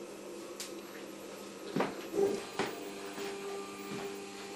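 Stepper motors of a CNC hot-wire foam cutter humming in several steady tones as they drive the wire carriages. The motor tone changes about two seconds in, with a few sharp clicks and knocks around that moment.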